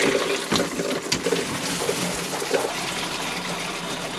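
Water spraying steadily from a handheld RV shower head fed by the trailer's pump-pressurized fresh water system, with a few light knocks as the head is taken off its holder and handled.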